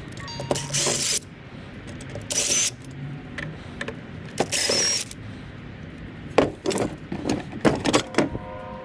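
An old oscillating fan being taken apart: three short bursts of hissing noise, then a run of sharp clicks and metallic clatters as its steel parts and screws are handled.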